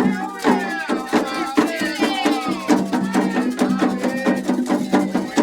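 Candomblé ritual music for Xangô: hand drums and a rattle keep a fast, even beat of about four strokes a second under a steady low tone, with voices singing over it in the first half.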